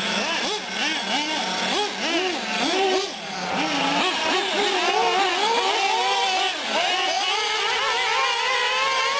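Small two-stroke glow (nitro) engines of 1/8-scale R/C short course trucks and buggies revving up and down in quick rising-and-falling whines as they lift off and accelerate through the turns. About four seconds in, one engine holds a long, steadily climbing whine under sustained throttle.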